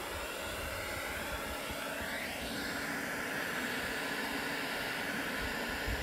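Kemper 2000 W electric weed burner running: its fan blows hot air through the nozzle with a steady rushing hiss like a hair dryer. A brief rising sweep in the hiss comes about two seconds in.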